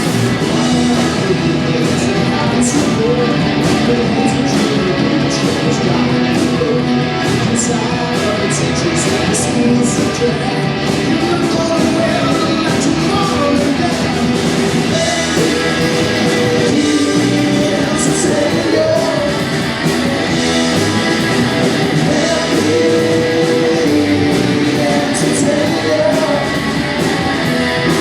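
Live rock band playing: electric guitars and drums with a singing voice.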